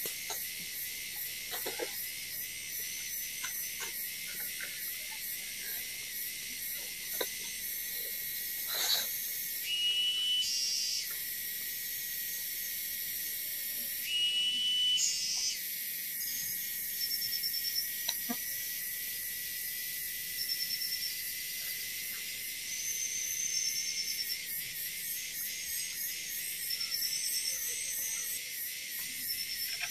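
Rainforest insect chorus: a dense, high shrill of insects pulsing steadily, with a wavering trill underneath. It grows louder in two chirping passages about ten and fourteen seconds in. Soft rustles and taps of palm-leaf strips being woven into a bamboo frame sound faintly beneath.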